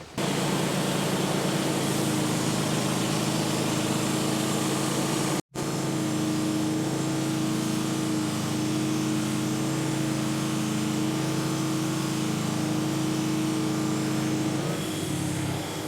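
Gasoline engine of a portable bandsaw mill running at a steady speed. The sound cuts out for an instant about five and a half seconds in, then carries on.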